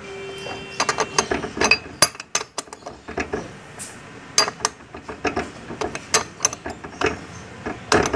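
Steel spanner clinking and clicking on the rear axle nut of a Yamaha Ray ZR scooter as it is worked round: a string of irregular, sharp metal clinks.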